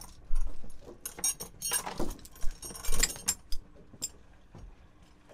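Steel chain and grapple anchor clinking and rattling as they are handled, in a series of sharp metallic clinks over the first three seconds, then dying away.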